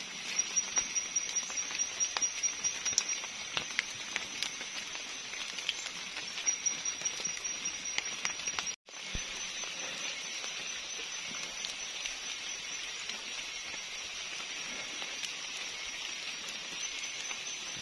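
Wet rainforest ambience: a steady high insect drone with a thin, pulsing upper note, and scattered small ticks and patters in the first half. The sound cuts out for an instant about nine seconds in.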